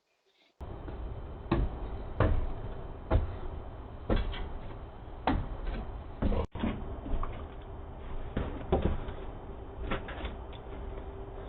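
Irregular knocks and clunks, roughly one a second, over a steady low hiss, heard through a doorbell camera's microphone.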